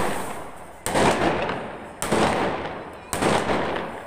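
Aerial fireworks bursting overhead: four sharp bangs about a second apart, each fading away over roughly a second before the next.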